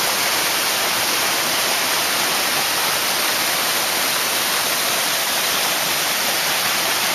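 Waterfall rushing steadily close by: an even, unbroken hiss of falling water.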